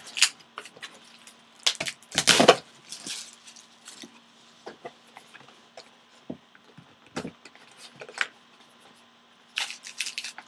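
Plastic shrink wrap being torn and crinkled off a cardboard trading-card box, in scattered short bursts, the loudest about two seconds in, then the box being handled and opened.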